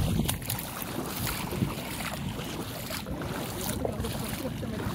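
Wind buffeting a phone's microphone, a low, uneven rumble.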